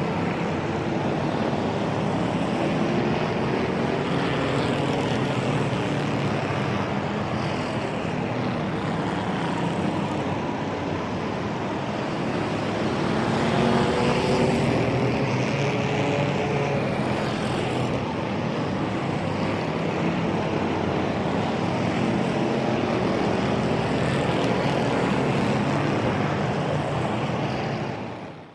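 Racing engines running together in a steady drone, several pitches gliding up and down at once as the vehicles speed up and pass; the sound cuts off at the end.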